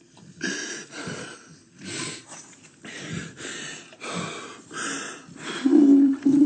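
A man breathing in heavy, ragged gasps, one every half-second to second, with sobbing from grief. Near the end it breaks into a drawn-out, wavering wail.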